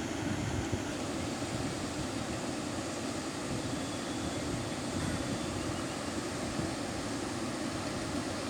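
Steady rushing noise of the swollen Kamla river in flood, fast-flowing water running at a constant level.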